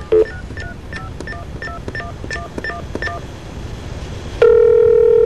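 Touch-tone (DTMF) keypad tones over a phone line, a quick run of about a dozen short two-tone beeps dialing a number. About four and a half seconds in, a loud steady ringing tone starts on the line as the call goes through.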